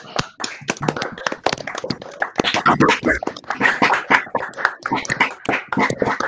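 Scattered applause from several people on a video call, uneven hand claps coming through their computer microphones.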